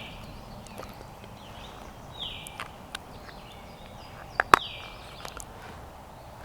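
A songbird repeating a short note that slides downward, about once every two seconds. A few sharp clicks, the loudest about four and a half seconds in.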